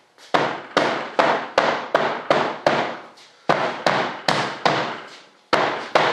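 A mallet tapping on a thick fibreglass fuselage mold, about three sharp blows a second in runs with brief pauses, each ringing out briefly. The light knocking is meant to pop the laid-up fuselage part loose from the mold.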